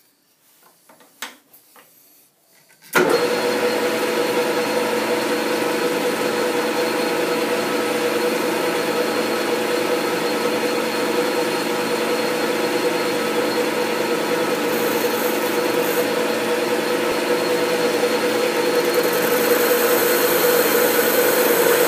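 A few faint handling clicks, then about three seconds in a metal lathe starts and runs steadily, with a hum and a high-pitched whine, for the final sizing cut on a worn steel shaft.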